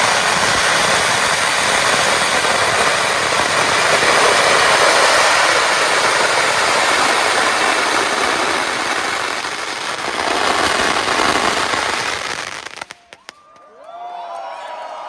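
Fireworks going off in a dense, continuous crackle and hiss. The sound stops abruptly about two seconds before the end, leaving faint voices.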